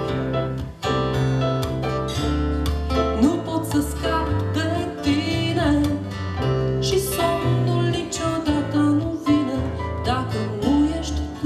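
Live folk song: an acoustic guitar played with a woman singing over it.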